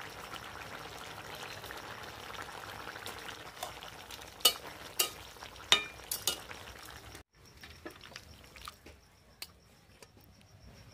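Paneer and mixed-vegetable curry sizzling and bubbling in a kadai just after ghee goes in, with a few sharp pops about halfway through. The sizzle then cuts off abruptly to a quieter background with a faint, steady high trill.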